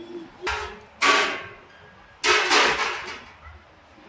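Metal poles knocking and clanking as they are handled and set up: a light knock, then two loud clanks about a second apart, each ringing on briefly.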